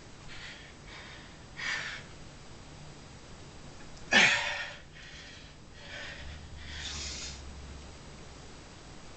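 A man breathing hard with sharp, forceful exhales and snorts while straining to hand-bend a 3/8 by 1 inch steel bar. The loudest is a sudden hard exhale about four seconds in, followed by a longer one near the end.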